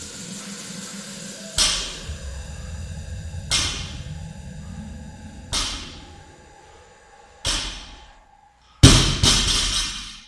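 A loaded 80 kg barbell set down on a rubber gym floor five times, about every two seconds, one impact per deadlift rep. The fifth, near the end, is the loudest: the bar dropped after the last rep, bouncing briefly.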